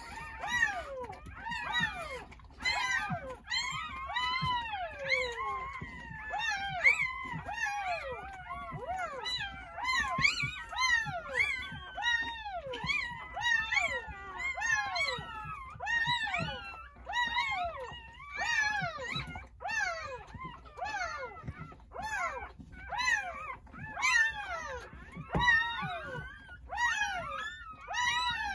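Several newborn Jindo puppies crying at once: high, overlapping squeals and whimpers that rise and fall in pitch, with hardly a pause.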